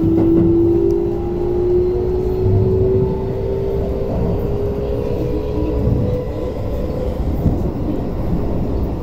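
Keio 8000 series train's Hitachi IGBT inverter and traction motors whining in a slowly rising pitch as the train accelerates, over the rumble of the wheels on the rails, heard from inside the car.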